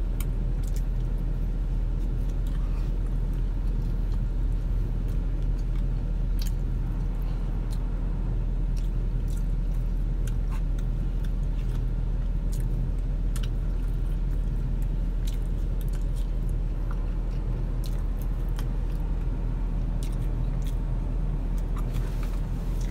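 Steady low hum of a car's idling engine, heard from inside the cabin, with scattered small clicks of chewing and biting into fried food.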